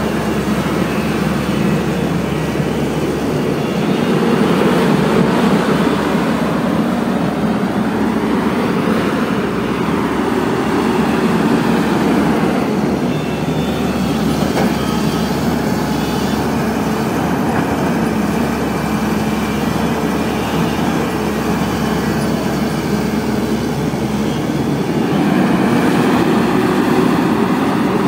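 Caterpillar hydraulic excavator's diesel engine running steadily, swelling a little louder a few times.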